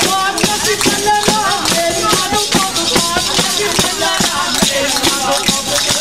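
Tammorra, the large southern Italian frame drum with jingles, beating a steady tammurriata rhythm, about three strokes a second, its jingles rattling on each stroke. A voice sings over the drumming.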